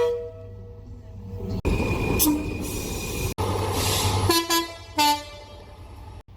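Train horns from several clips cut together: a horn chord dies away at the start, then a train passes with a steady high-pitched whine, and near the end the horn gives two short toots about half a second apart.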